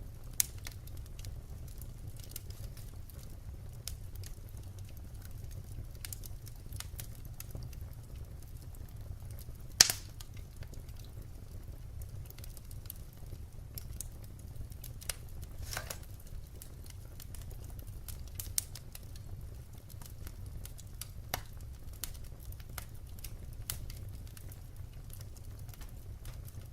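Wood fire crackling: scattered snaps and pops over a steady low rumble, with one loud pop about ten seconds in.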